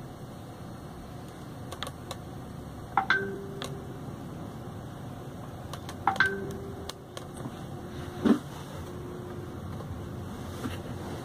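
Clicks of front-panel buttons being pressed on a Pioneer DEH-1280MP car CD receiver, with two short rising electronic beeps about three and six seconds in, each followed by a low steady tone through the speakers. A louder thump comes about eight seconds in.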